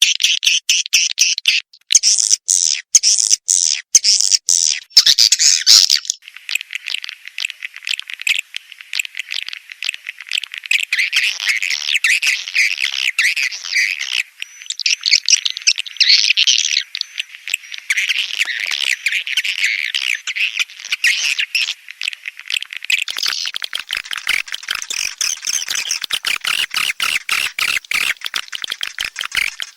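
Recorded swiftlet lure call: a dense, continuous mass of rapid high-pitched swiftlet chirps and twitters. The texture shifts a little after about 23 seconds.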